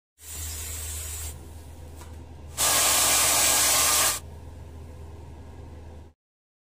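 A steady spraying hiss over a low hum, much louder for about a second and a half in the middle, cutting off abruptly about six seconds in.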